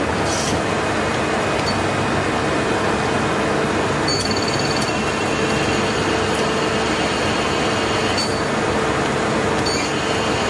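A 2000 Mazak Multiplex twin-spindle CNC lathe running with its spindle turning, making a steady mechanical noise. Thin high whines join the noise about four seconds in.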